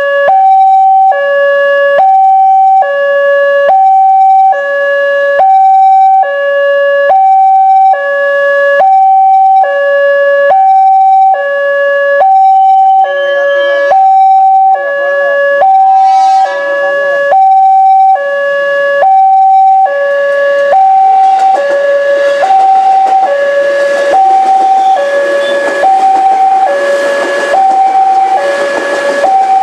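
Railway level-crossing warning alarm sounding two tones in turn, high then low, each held just under a second, repeating steadily. In the last third the rushing noise of an electric commuter train (JR 205 series) builds under it as the train reaches and passes the crossing.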